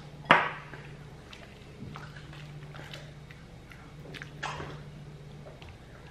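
Metal ladle clinking sharply once, then soup being ladled into a ceramic bowl with soft wet sounds and a lighter knock of the ladle about four and a half seconds in, over a low steady hum.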